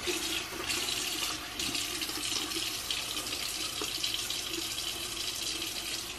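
Bathroom sink faucet turned on, then running steadily into the basin while hands rub together under the stream, rinsing off a gritty sugar scrub.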